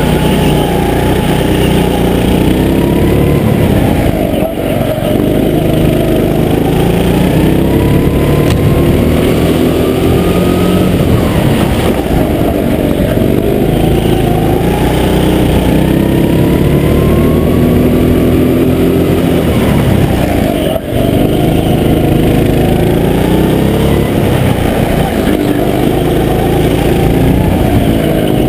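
Go-kart's small petrol engine running hard, recorded on board: its pitch climbs steadily along each straight and drops back into each corner, several times over, with two short lifts in loudness about four and a half seconds in and near twenty-one seconds.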